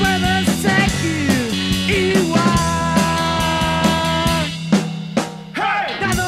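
Rock band playing an instrumental passage: drum kit and bass under a lead instrument playing long held notes and pitch bends, with a brief drop in loudness about five seconds in.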